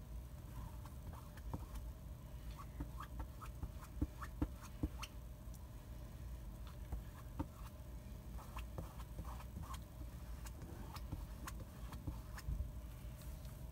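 Fingertips dabbing and rubbing ink over a plastic silkscreen transfer on a shirt: soft, irregular ticks and crinkles, with three sharper taps about four to five seconds in, over a low steady rumble.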